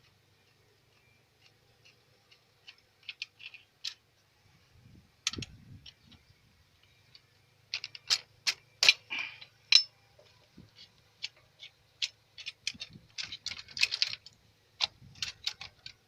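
Irregular metallic clicks and clinks of hand tools and fittings as a fuel injection pump is being unbolted, some in quick clusters, loudest around eight to ten seconds in and again near the end.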